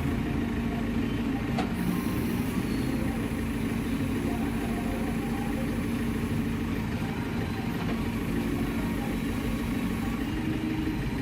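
Diesel engine of a JCB 3CX backhoe loader running steadily at an even speed.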